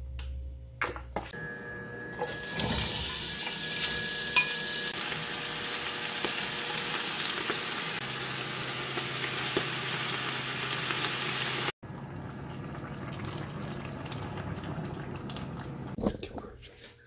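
Squid and vegetables frying in hot oil in a stainless steel pot, a steady sizzle that is loudest in the first few seconds. It cuts off abruptly about twelve seconds in, then picks up again.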